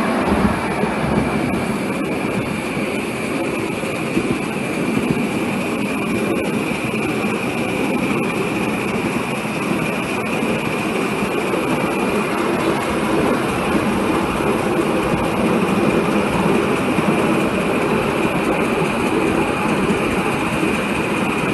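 A 5-inch gauge J94 Austerity 0-6-0 live-steam model locomotive running with its train under load, the wheels rolling on the rails in a steady noise with a faint high steady tone and a few light clicks.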